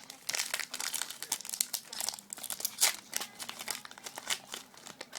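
Packaging of a Yu-Gi-Oh booster pack crinkling and tearing as it is worked open by hand, a dense run of irregular crackles with the sharpest one about three seconds in.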